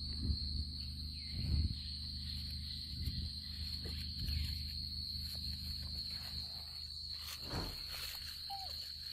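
Night insects, crickets, trilling steadily on one high pitch, over a low rumble with a few dull thumps. A short falling squeak comes near the end.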